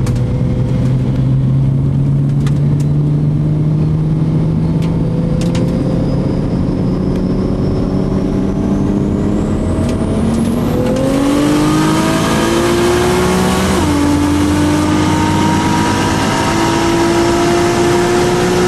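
A car engine cruising with its revs creeping up, a thin high whine climbing over several seconds, then about eleven seconds in the engine goes to full throttle. The revs climb, drop sharply at a gear change about three seconds later, and climb again.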